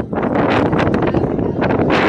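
Loud wind buffeting the microphone, a rumbling rush that rises and falls.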